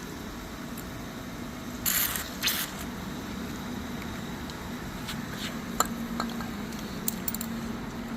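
Two short sprays from an aerosol can of penetrating lubricant, about half a second apart, about two seconds in, loosening the stuck lock washer on the wheel axle. A few light clicks follow.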